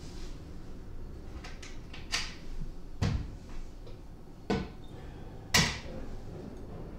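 Wooden sideboard cupboard being opened and shut: four knocks and clunks a second or so apart, the loudest about three and five and a half seconds in.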